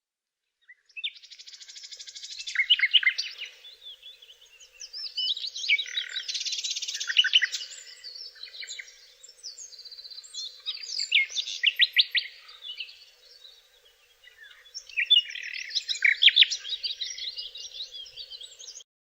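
A songbird singing four long, complex phrases of buzzy, chattering and rattling notes, each phrase ending in a quick series of sharp clicks, with short pauses between phrases.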